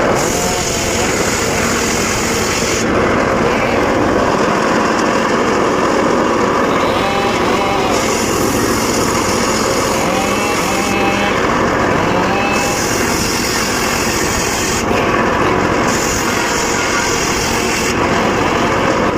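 Circular saw running steadily while cutting mahogany, with a high hiss that comes and goes every few seconds as the blade cuts.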